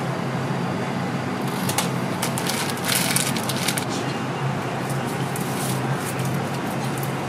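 Steady low hum of kitchen equipment, with a patch of light crackling and clicking about two to four seconds in as cheese is laid onto kimbap and the bamboo rolling mat is handled.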